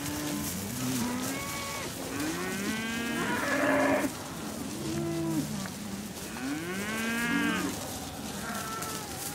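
Herd of black-and-white Holstein-Friesian dairy cows mooing, several long calls overlapping, each rising and falling in pitch; the loudest comes about three to four seconds in.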